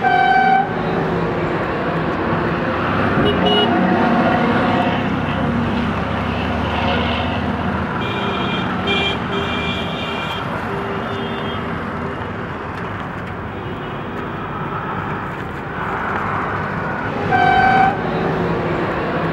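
Busy city road traffic running steadily, with vehicle horns honking several times: a horn blast at the start and again about seventeen seconds in, and shorter, higher toots around three seconds and between eight and ten seconds in.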